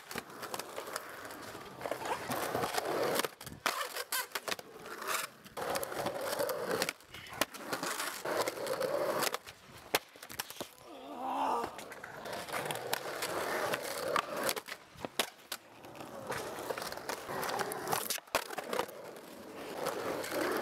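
Skateboard wheels rolling over concrete, with repeated sharp clacks and cracks as the board hits the ground and the ledge.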